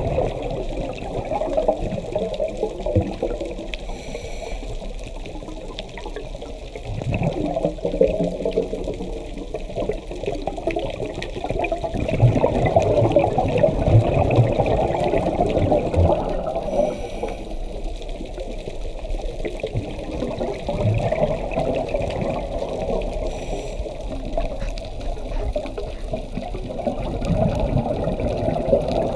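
Scuba regulator breathing heard underwater: exhaled bubbles in several long, swelling stretches, with three brief high hisses of inhaling between them.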